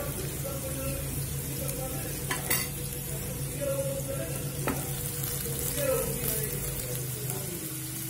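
Boiled potato slices sizzling as they fry in hot oil in a pan, stirred with a wooden spatula, over a low steady hum; two sharp clicks, one a few seconds in and one near the middle.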